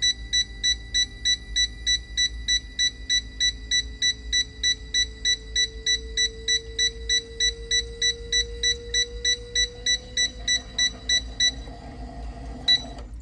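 Fuel injector test bench running a flow test: an even, rapid beeping about four times a second over a pump hum that slowly rises in pitch as the pressure is raised to 80 PSI. The beeping stops near the end, followed by a single click.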